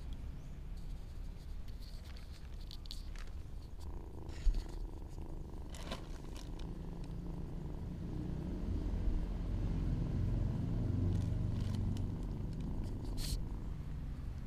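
Kitten purring: a low, steady rumble that grows louder about halfway through. A single sharp knock comes about four and a half seconds in.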